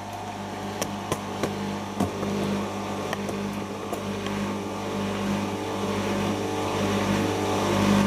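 Siemens serie IQ 1430 front-loading washing machine starting its final spin: the drum motor hums steadily and gets gradually louder as the drum picks up speed. A few light clicks come in the first couple of seconds.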